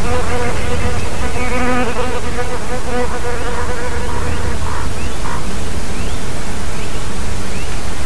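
A flying insect buzzing close to the microphone, a wavering hum that fades out about three and a half seconds in, over a steady background hiss. A few faint short rising chirps follow in the second half.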